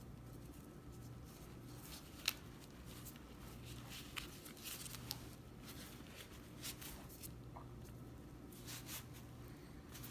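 Faint rustling and scattered small clicks of hammock suspension line and fabric being handled, pulled through and tightened into a knot by hand, with one sharper click a couple of seconds in.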